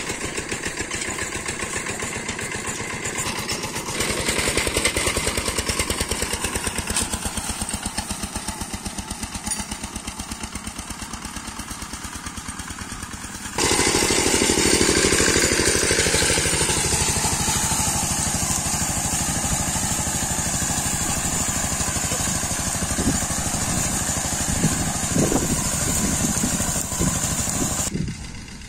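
Kentavr walk-behind tractor's single-cylinder diesel engine running at a steady beat, then about halfway through much louder as it pulls the tractor along dragging metal harrows across the soil. Some clatter near the end.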